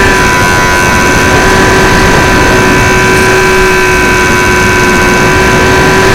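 Electric motor and propeller of an XK A700B RC airplane whining at a steady pitch, recorded by the onboard camera and buried in loud wind noise rushing over the microphone.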